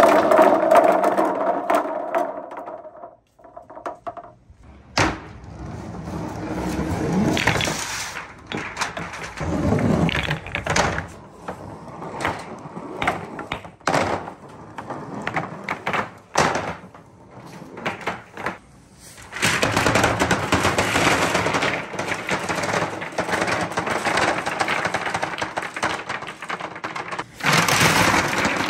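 Billiard balls rolling down a chute and clacking into one another: single sharp knocks in the first half, then a long stretch of steady rolling clatter, and near the end a loud burst of clacks as a basketful of balls is tipped onto the chute. The opening seconds hold a splashing rush as balls drop into a water-filled glass fishbowl.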